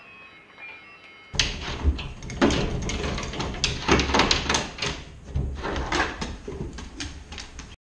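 Soft music with held notes, then from about a second and a half in, a Labrador pawing at a wire-grid pendulum contraption on a board: repeated clattering, rattling and knocking with low thumps. It cuts off abruptly near the end.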